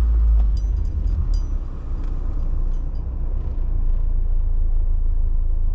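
Vehicle driving slowly on a rough snowy dirt road, heard from inside the cab: a steady low rumble of engine and tyres, with a few light rattles or clicks between about half a second and a second and a half in.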